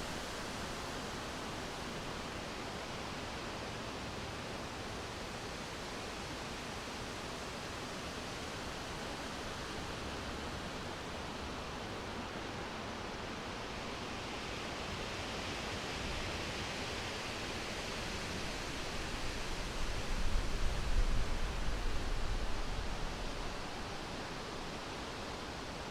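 Wind blowing through leafy summer forest trees: a steady rushing of leaves. It swells into a stronger, deeper gust about twenty seconds in, then eases back.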